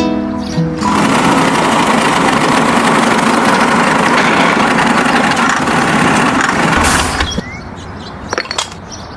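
An engine running loudly as a steady noisy drone. It cuts off abruptly about seven seconds in, followed by a few sharp clicks.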